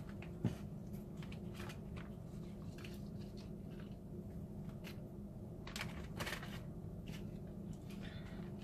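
Plastic zipper bags crinkling and rustling softly, with a few light clicks, as hands push sprigs of fresh herbs into them.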